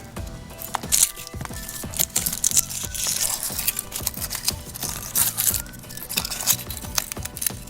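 Foil wrapper crinkling, crackling and tearing in quick irregular bursts as it is peeled off a chocolate surprise egg, over background music.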